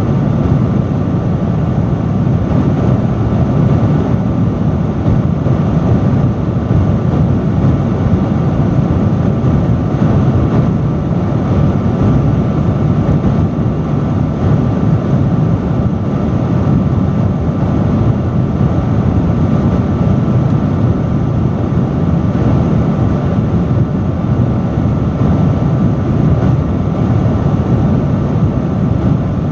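Industrial fan running at a steady speed: a loud, even rush of air, deepest in the low end, with a faint steady hum over it.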